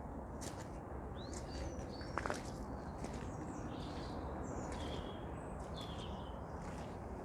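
Small birds chirping and calling now and then over a steady low outdoor background noise, with one sharp knock about two seconds in.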